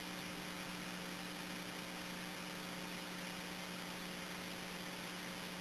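Steady hiss with a low electrical hum: the background noise of a two-way radio recording between transmissions.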